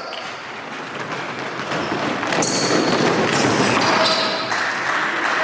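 Basketballs bouncing on a gym floor amid the busy noise of a basketball practice, with several sharp knocks.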